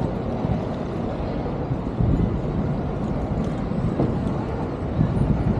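Street noise heard from a moving bicycle in city traffic: a steady low rumble of traffic and wind on the microphone, getting louder about two seconds in and again near the end.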